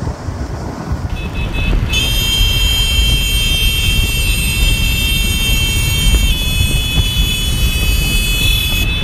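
Motor scooters riding in a group, engines running under heavy wind rumble on the microphone of a moving scooter. From about two seconds in, a steady high-pitched whine joins; it shifts pitch slightly a little after six seconds.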